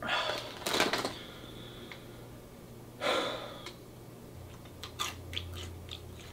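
A plastic snack bag crinkling in two loud bursts as a hand rummages in it, near the start and about three seconds in, with smaller crackles between.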